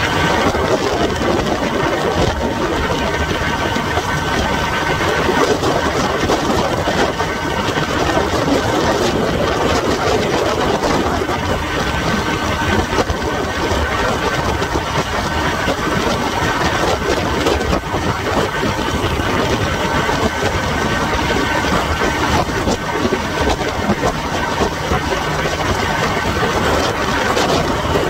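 1968 Evinrude 18 hp two-cylinder two-stroke outboard motor running steadily under way, driving the boat along at speed.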